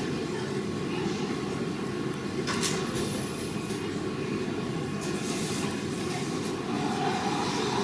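Steady low mechanical rumble, with two short hissing bursts about two and a half and five seconds in.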